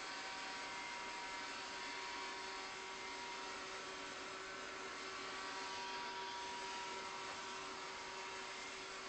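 Steady hiss and hum of a small electrical device running, with a few faint steady whining tones.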